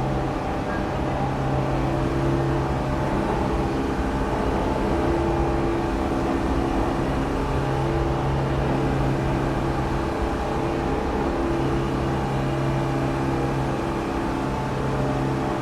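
New York City subway station ambience: a steady rumbling hum with several held tones that fade in and out every few seconds.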